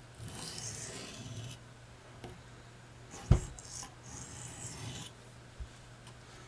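Steel knife blade drawn across a lubricated combination oilstone in two long sharpening strokes, a hissing rasp. A single sharp knock about three seconds in, the loudest sound.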